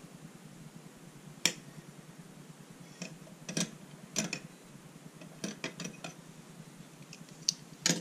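Sharp clicks and taps of a Maxam Falcon VII lockback pocket knife being handled, folded shut and laid on a table: one loud click about a second and a half in, small clusters of clicks after it, and two more clicks near the end.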